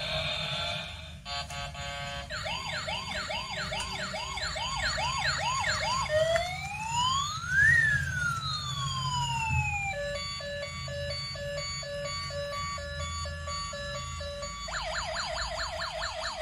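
Toy police car's electronic siren sound effects from its small speaker, cycling through patterns: quick repeated falling yelps, then a slow rising-and-falling wail about six seconds in, then a steady pulsing electronic tone, and fast yelps again near the end. A low steady rumble runs underneath.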